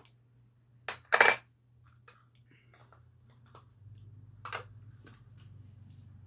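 A white ceramic bowl and metal spoon clinking on the table, with one sharp ringing clink about a second in and a lighter click a few seconds later.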